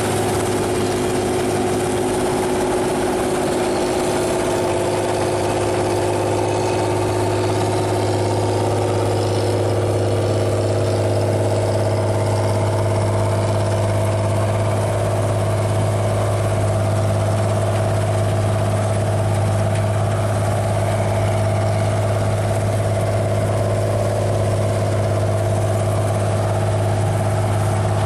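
Claas Dominator 106 combine harvester running steadily, its engine giving a constant low hum with no change in speed.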